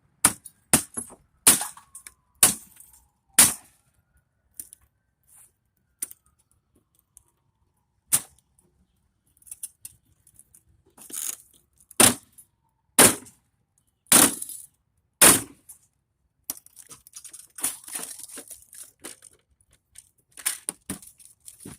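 Desktop computer's case being forced open: a string of sharp cracks and knocks, several in quick succession at the start and more spaced a second or so apart after a pause, then rattling and scraping of loose metal parts near the end.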